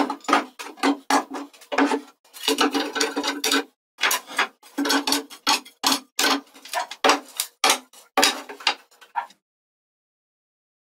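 Metal pipe clamps clanking against each other and the bench as they are laid out, then wooden strips clacking down onto the clamp bars: a quick, uneven run of knocks and clinks that stops about nine seconds in.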